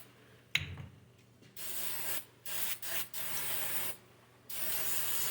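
Aerosol brake cleaner sprayed on transmission parts in several short bursts of hiss, each cut off abruptly, with a sharp knock about half a second in.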